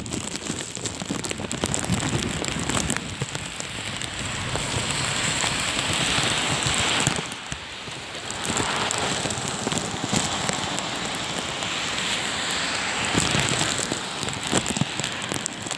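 Heavy rain coming down hard, a steady dense patter of drops, easing for a moment about halfway through.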